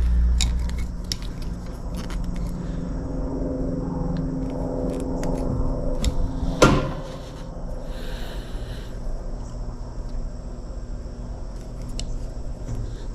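Hand wire cutters and a wire stripper working on an insulated wire: small clicks and handling noises, with one sharp snip about halfway through. A steady low hum runs underneath and stops at about that point.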